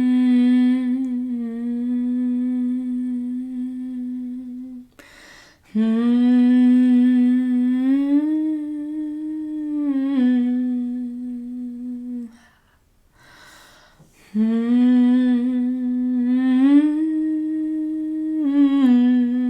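A woman's voice in slow, wordless, humming long notes, improvised to give grief a sound. There are three long phrases, each rising a step and sinking back, with breaths between them about five and thirteen seconds in.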